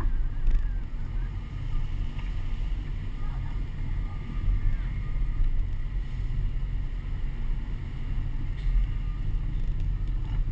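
Steady low rumble of a truck driving slowly, with wind buffeting the microphone of a camera strapped to the outside of the truck.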